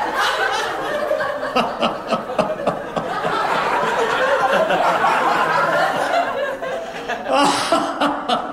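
Audience laughing steadily after a punchline, many voices together, with a few scattered claps.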